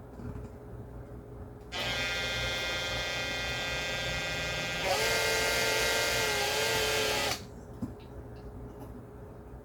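Small electric drill spinning up to a steady high whine. About halfway through, the bit bites into the die-cast rivet post and the pitch dips and wavers under load, as it drills the head off the post without going through. It stops shortly after.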